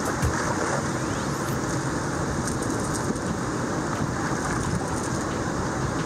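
Steady rushing roar of water pouring through a dam's spillway gates and churning downstream.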